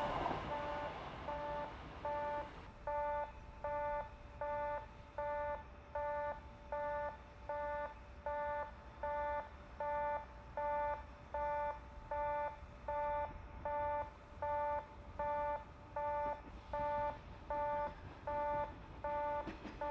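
Railway level-crossing warning bell ringing steadily: a two-tone electronic chime repeating about four times every three seconds.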